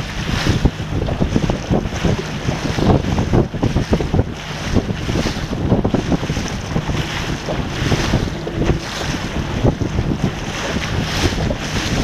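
Wind buffeting the microphone on a sailing dinghy, with water splashing and rushing along the hull, gusting unevenly throughout.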